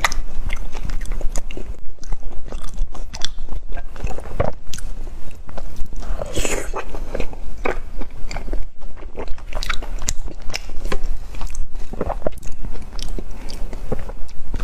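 A person biting and chewing food close to the microphone: many short crunchy, sticky mouth clicks at an uneven pace, over a steady low hum.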